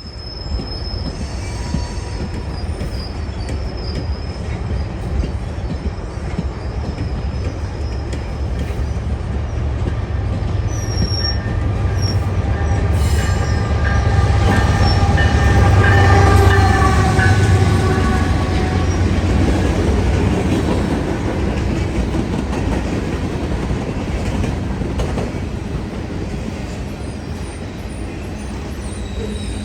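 CN freight train passing: the rumble of its single AC44C6M diesel locomotive and the rolling freight cars swells to its loudest about halfway through, with wheels squealing faintly on the rails around the loudest part.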